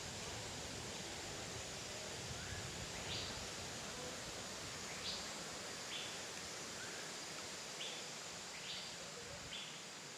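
Tropical forest ambience: a steady background hiss with short, high calls repeating every second or two.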